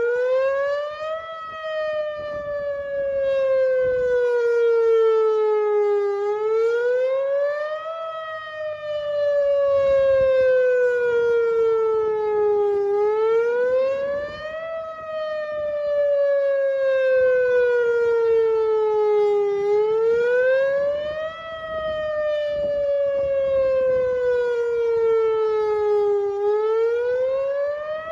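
Whelen WPS-2906 electronic outdoor warning siren sounding its attack signal. It is a rising and falling wail that climbs quickly, then sinks slowly, repeating about every seven seconds.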